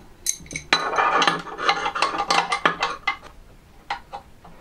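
Small adjustable spanner clinking and scraping on a float valve's coupling nut in a ceramic toilet cistern as the nut is tightened: a dense run of metal clicks and scrapes for the first three seconds, then a few scattered ticks.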